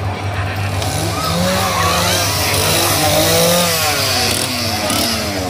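Handheld two-stroke chainsaw running, its pitch shifting as it is revved, with people's voices shouting over it.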